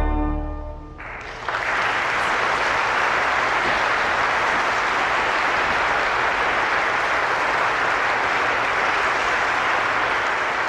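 The final chord of the 1885 Schuelke tracker pipe organ dies away in the church's echo over about a second. Then an audience starts applauding about a second and a half in and keeps clapping steadily.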